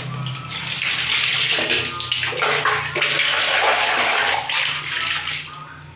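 Water poured from one plastic dipper into another, overflowing and splashing into a plastic bucket. The pouring dies down about five and a half seconds in.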